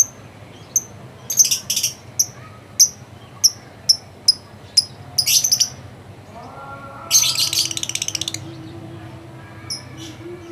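Lovebird chattering: sharp, high chirps in quick groups, then a rapid buzzing trill lasting about a second, with a few more chirps near the end.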